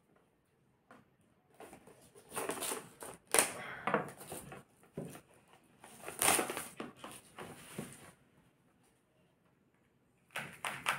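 A knife cutting the seal on a small cardboard earbuds box, with the box and its packaging scraping and rustling as they are handled. The sounds come in irregular bursts, with two louder stretches, one a couple of seconds in and one around the middle.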